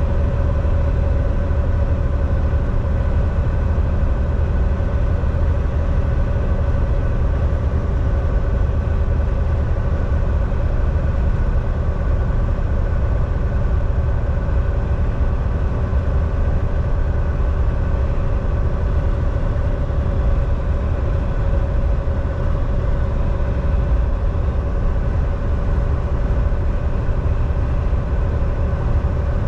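Volvo semi truck's diesel engine running steadily while driving at an even speed, with tyre and road noise under a constant drone.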